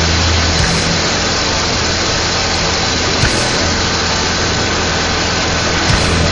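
Go-kart engine running steadily at speed, heard from the moving kart under a heavy, even rush of wind and road noise, with a couple of small knocks.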